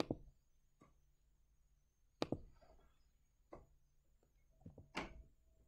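Computer mouse clicking: about six short, soft clicks and taps spread out, the loudest near the end. A faint steady high whine runs underneath.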